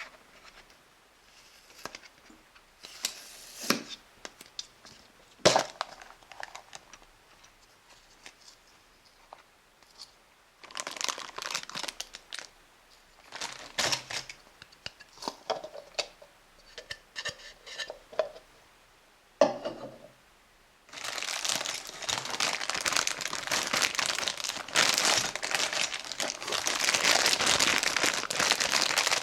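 Hands unwrapping a toy's packaging: scattered clicks and short rustles, then about two-thirds of the way through a continuous, louder crinkling and tearing of the wrapper.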